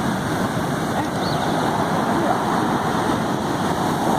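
Steady rushing of ocean surf and wind.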